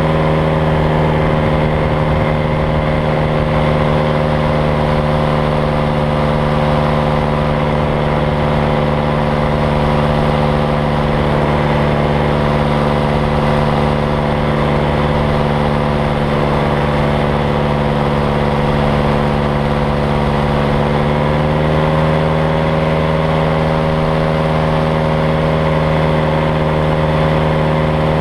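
Small aircraft engine and propeller of a powered paraglider droning steadily in flight, over a low wind rumble on the microphone. The engine note rises slightly about three quarters of the way through as the throttle is opened a little.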